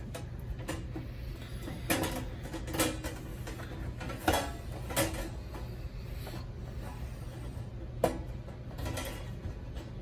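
Perforated metal cover of a microwave down converter being gripped and worked loose by hand: a handful of short, light metal clicks and knocks, spread through several seconds, over a steady low hum.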